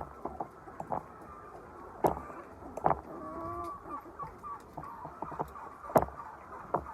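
Hens clucking, with one short pitched call about three seconds in, among scattered sharp knocks and clicks. The loudest knocks come about two, three and six seconds in.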